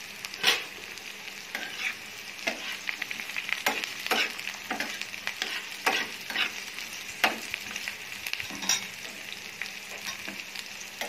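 Chopped onion and garlic sizzling in hot oil in a frying pan, with a steady hiss. A metal spatula scrapes and taps against the pan a dozen or so times at irregular intervals as they are stirred.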